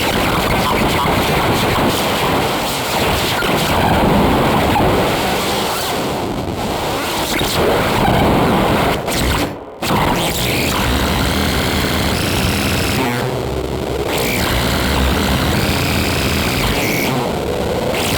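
Dense, layered noise texture from an electroacoustic composition. It cuts out abruptly for a split second about ten seconds in, then resumes with wavering high tones drifting above the noise.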